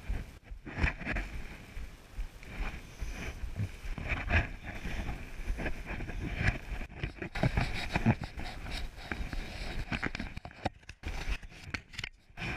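Irregular scuffs, knocks and rustles of someone scrambling over a rock face with the camera on their body, over a low rumble of handling noise on the microphone.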